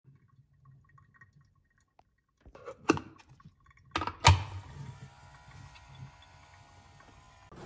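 A few sharp clicks and knocks as a Bodum electric milk frother is handled and switched on, then its motor whirring steadily with an even hum.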